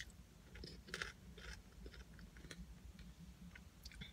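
A person chewing food with the mouth closed, faint, with scattered soft wet mouth clicks.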